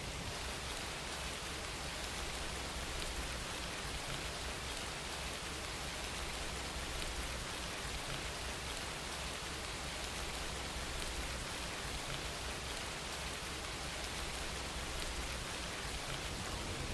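Steady rain falling, an even hiss of drops with no thunder or distinct drips.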